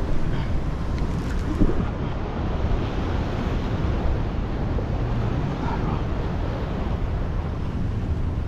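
Wind buffeting the microphone over surf washing against jetty rocks: a steady, even rush with no distinct events.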